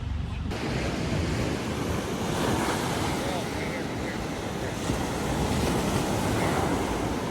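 Ocean surf breaking and washing on the beach, a continuous dense rush, with wind buffeting the microphone.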